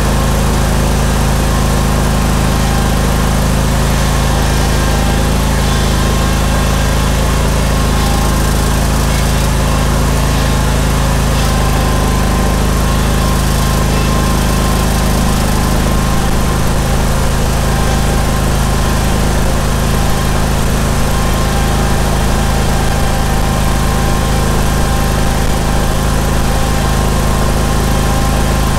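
Steel Green sprayer-spreader's Vanguard 21 hp V-twin engine running steadily at a constant speed.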